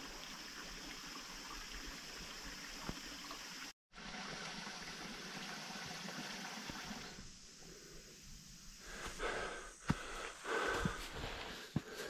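Small forest stream running steadily with an even rushing hiss, which fades out about seven seconds in. Near the end there are scattered scuffs and knocks of someone climbing the trail.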